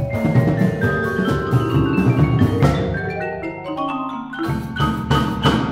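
Percussion ensemble of marimbas, vibraphone and timpani playing a busy passage of mallet notes. Around the middle it thins to ringing held notes, then several sharp accented strikes come near the end.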